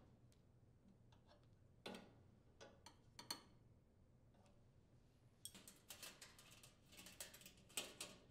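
Faint metal clicks of open-end wrenches on the brass gas supply tube nuts at a gas range's burner valve as they are tightened: a few spaced ticks about two to three seconds in, then a denser run of small clicks and handling rustle over the last few seconds.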